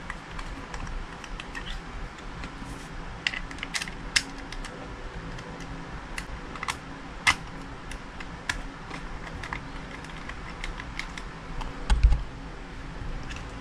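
Scattered small clicks and taps of parts being handled and a screw fitted on a plastic airsoft pistol frame, with a sharper click about seven seconds in and a low thump near the end.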